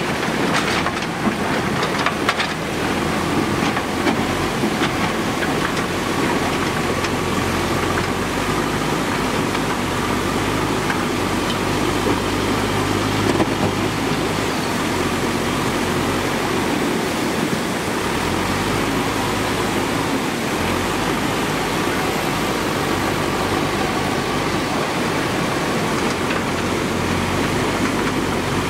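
JCB backhoe loader's diesel engine running with a low hum that changes now and then as it works, over the steady rush of floodwater across a rocky riverbed.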